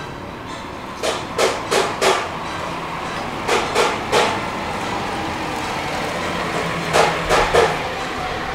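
Sharp knocks in three runs of three quick strikes, about a third of a second apart, over a steady background hum.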